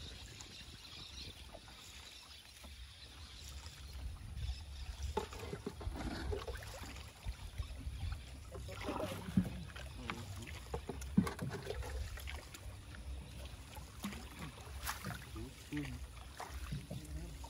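Fishing net being worked over the side of a canoe: light splashes, drips and scattered clicks of net and water against the hull, over a steady low rumble.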